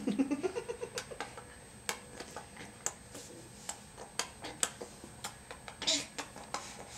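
A clock ticking steadily, about once a second. Right at the start a baby gives one short coo that rises in pitch.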